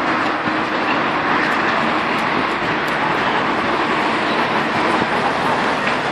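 Steady city street traffic noise on wet roads: an even wash of vehicle and tyre noise with no single sound standing out.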